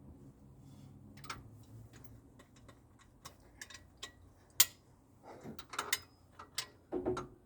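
Irregular small clicks and clinks of tools and metal engine parts being handled, sparse at first, with one sharp click about halfway through and a busier run of clicks near the end.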